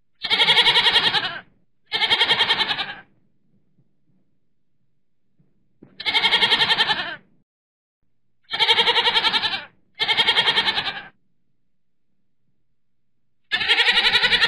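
A goat bleating six times, each bleat about a second long with a wavering, trembling pitch, separated by silent gaps; the last one is cut off at the end.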